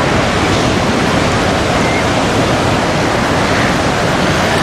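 Steady rushing noise of wind on the microphone mixed with surf breaking along the beach, with faint crowd voices underneath.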